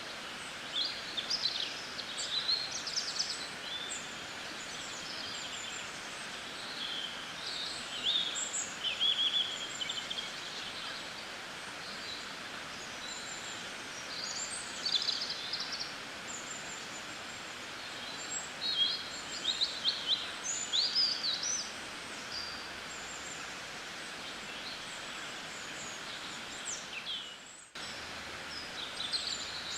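Small birds chirping in short, irregular bursts over a steady hiss of background noise, with a brief dropout near the end.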